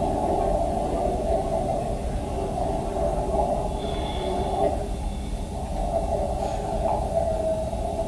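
Steady underwater noise from dive footage played over loudspeakers, with faint wavering tones and a brief higher tone about four seconds in.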